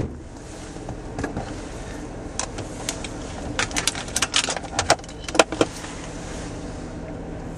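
Inside a Zastava 101 car: a run of sharp clicks and rattles, densest a little after the middle, over a steady low hum.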